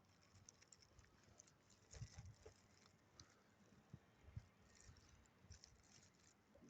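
Near silence, with a few faint scattered ticks and soft low thumps.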